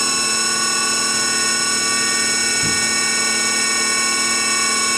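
SNK Prodigy GT-27 CNC gang tool lathe spindle running at 2,500 rpm: a steady, unchanging whine made of many pitched tones.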